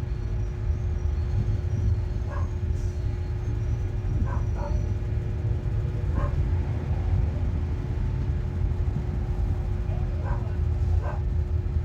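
Steady low rumble with a constant hum, and a few faint, brief voices in the background.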